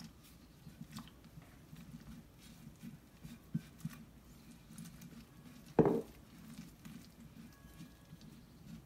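Hand mixing flour and water in a bowl for sfenj dough: quiet, irregular patting and rubbing in the damp flour, with a single knock about six seconds in as the water glass is set down on the counter.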